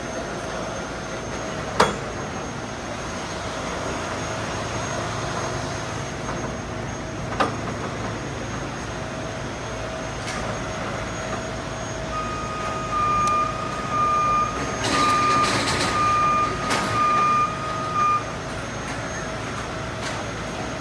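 Heavy truck engine running steadily, with two sharp knocks in the first half. In the second half a reversing alarm beeps about six times, roughly once a second, and a burst of air hiss comes in the middle of the beeps.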